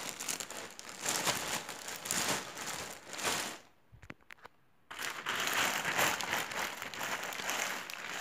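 Plastic packaging crinkling and rustling as hands pull open a plastic mailer bag and handle the clear plastic bag inside. The rustle breaks off for about a second midway, then goes on.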